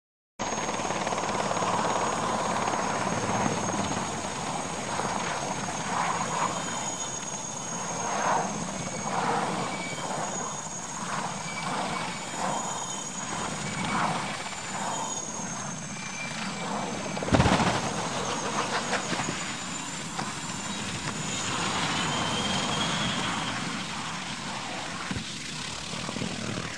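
Military helicopter running, with rotor and engine noise and a thin high whine throughout. A single sharp, loud bang comes about seventeen seconds in, and the helicopter noise goes on after it.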